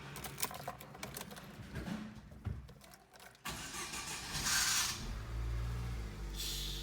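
Chevrolet Corsa starting: after a few light clicks, the starter motor cranks with a harsh noisy burst for about a second, then the engine catches and settles into a steady idle. The mechanic blames the starter noise on dirt contaminating the starter motor's planetary reduction gears.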